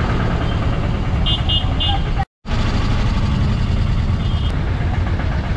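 Ride inside an auto-rickshaw through city traffic: a steady, loud rumble of the vehicle and road. Short high-pitched horn beeps come about a second and a half in and again near four seconds, and the sound drops out briefly just after two seconds.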